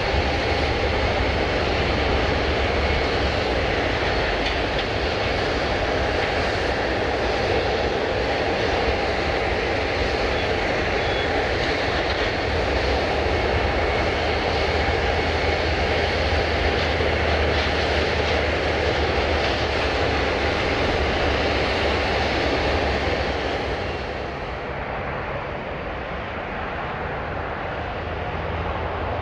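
Jet airliner engines running with a steady, dense rush and a faint thin whine. About 24 seconds in the sound turns quieter and duller.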